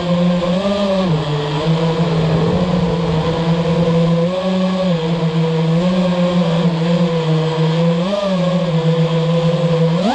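FPV drone's electric motors and propellers whining, heard from the onboard camera, held at a fairly steady low-flight throttle with small brief blips in pitch every few seconds.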